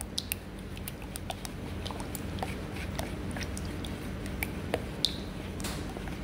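A stick stirring clay casting slip, freshly thinned with sodium silicate, in a plastic bucket: irregular soft wet clicks and taps as it works through the slip and knocks the bucket sides.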